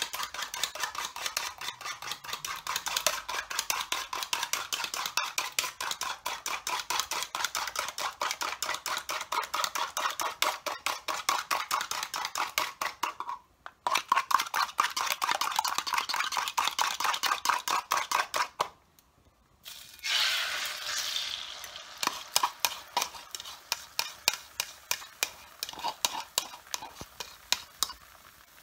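Fork beating eggs in a glass bowl: rapid, regular clicking, broken by two brief pauses. About two-thirds of the way in, the beaten egg hits hot oil in a nonstick frying pan and sizzles, the sizzle fading as the fork taps and scrapes against the pan.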